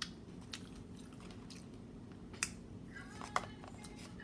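Someone chewing a mouthful of taco: irregular wet mouth clicks and smacks, with two louder smacks about two and a half and three and a half seconds in.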